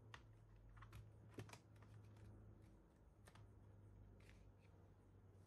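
Near silence broken by a few faint scattered clicks and taps of fingers or a small tool on plastic while a laptop's battery cable connector is worked loose, over a low steady hum.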